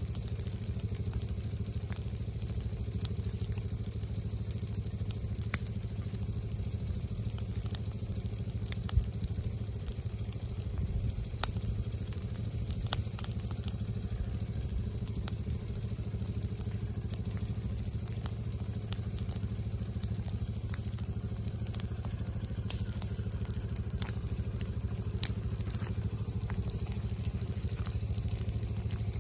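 Low fire burning through dry leaf litter, crackling and ticking with a few sharper pops, over a steady low rumble.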